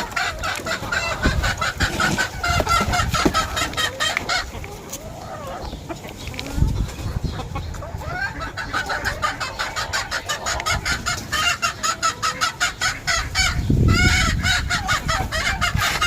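A flock of chickens clucking together in many overlapping short calls, thinning out for a few seconds midway and then picking up again.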